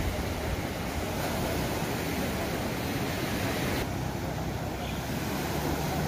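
Sea surf washing onto the beach in a steady rushing noise, with wind noise on the microphone.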